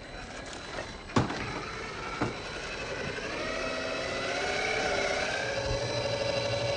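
Traxxas TRX-4 Sport 1/10-scale RC crawler's electric motor and gear drive whining, wavering in pitch and growing louder, after two sharp knocks about a second and two seconds in.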